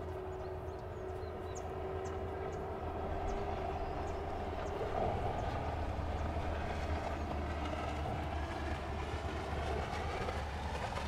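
Heavy trucks passing over a road bridge: a steady low rumble of engine and tyre noise that swells slowly and then holds, with a steady hum that fades out about three seconds in.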